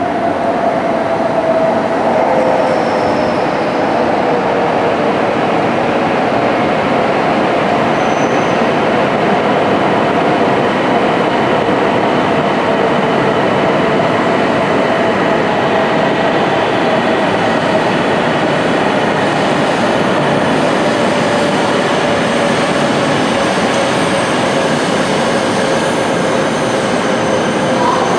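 JR East E5 series Shinkansen train pulling slowly into the platform: a steady, loud rush of running noise, with a couple of faint tones slowly falling in pitch as it slows.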